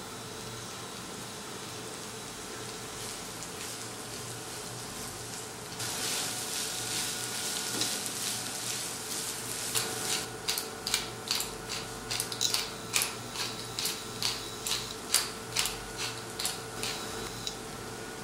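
Butter sizzling as it melts in a hot cast-iron skillet. The hiss starts about six seconds in, and from about ten seconds in it breaks into sharp crackling pops, roughly two a second, as the butter spatters.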